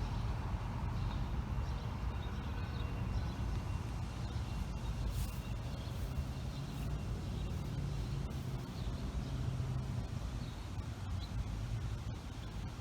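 Outdoor ambience: a steady low rumble with faint high chirps now and then.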